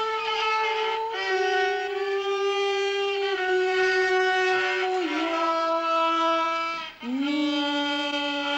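A beginner child bowing a simple tune on a violin: long, held single notes that step down in pitch one after another, with a slight waver on one note about five seconds in. The teacher hears one of the notes as out of tune.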